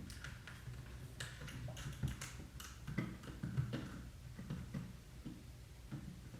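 Small irregular clicks, taps and knocks of hands handling a camera and flash unit, over a steady low hum.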